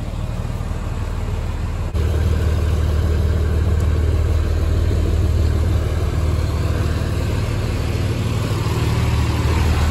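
Small ferry boat's engine running at idle, a steady low hum that jumps louder about two seconds in.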